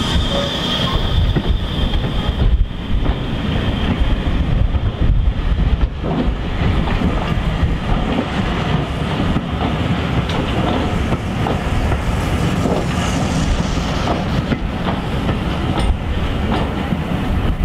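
Passenger coaches of a steam-hauled train, Pullman cars among them, rolling past at low speed with a steady rumble and irregular clicks of the wheels over the rail joints. A high steady tone fades out after about two seconds.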